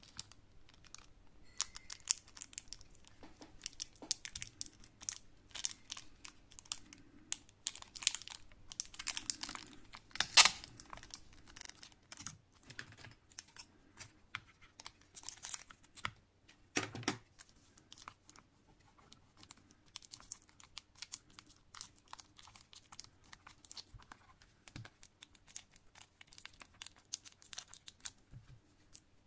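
Clear packing tape being pulled off the roll, wrapped and pressed down by hand, with crinkling and scattered crackles of the plastic. Two louder, sharper crackles come about ten and about seventeen seconds in.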